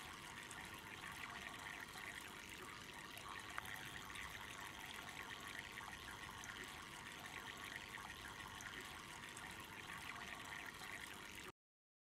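Faint, steady trickle of water from a small homemade tabletop cascade fountain, falling from spout to spout into faux-bamboo cups; it cuts off suddenly near the end.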